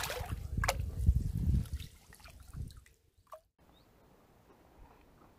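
A carp thrashing in a landing net at the water's surface, with loud splashing and slapping of water that dies away about two seconds in.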